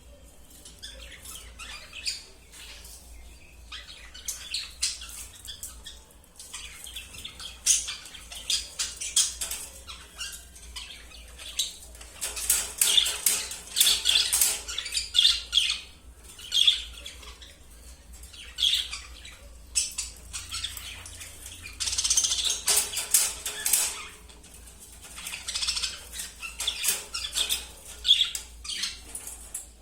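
A lovebird squawking and chirping amid repeated sharp clicks and rattles of its wire cage as it works at the cage door, in bursts that come and go.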